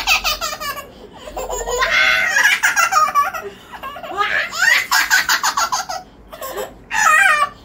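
A small child laughing hard in about four bursts of giggles with short pauses between.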